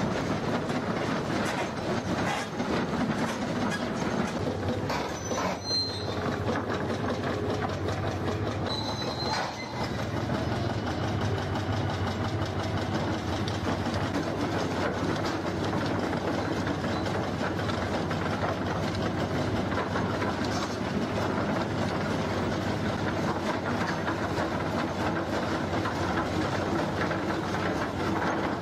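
Excavator-mounted rotary drum cutter grinding steadily into a pale rock face: a dense, continuous grinding noise with a short lull about nine seconds in.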